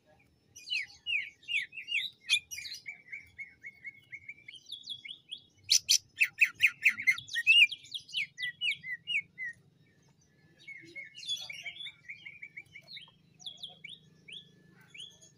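Male green leafbird (cucak ijo) singing in the fast, chattering 'ngentrok' style: runs of quick, sharp whistled notes and rapid trills, with a loud fast rattling series about six seconds in and a short pause near the tenth second.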